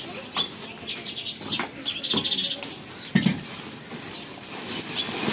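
A plastic sack rustling as it is handled, with small birds chirping and a short animal call about three seconds in.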